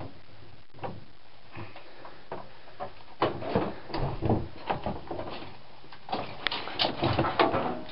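Shuffling footsteps, bumps and scrapes of people moving about in a small basement room, a cluster of irregular knocks starting about three seconds in after a stretch of quiet hiss.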